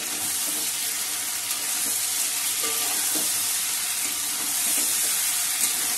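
Rui fish pieces, potatoes and spice paste sizzling steadily in hot oil in a kadai, stirred and turned with a metal spatula that scrapes and knocks against the pan. This is the koshano stage: the masala is being fried down in oil before water is added.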